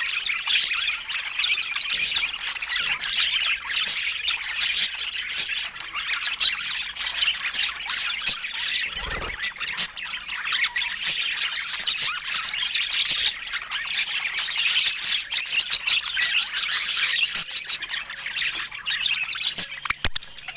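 A flock of budgerigars chattering and squawking without a break, many short high calls overlapping. A low thump about nine seconds in.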